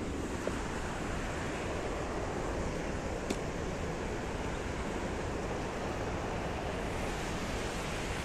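Steady, unbroken rushing of river water, with one sharp click about three seconds in.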